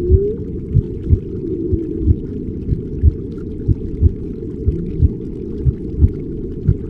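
Muffled underwater-style ambience with no highs, pulsing with a low double thump about once a second like a heartbeat. A held whale-like call rises and ends just after the start, and a fainter wavering one comes about a second and a half in.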